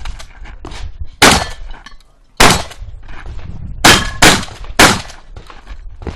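Shotgun shots: five loud, sharp reports, two of them about a third of a second apart, with several fainter shots in between.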